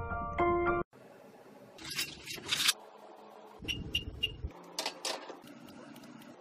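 A few piano-like notes that cut off about a second in, then clicks and knocks. Next come three short, high beeps in quick succession from an electric oven's digital control panel as it is set to bake, followed by a few more clicks.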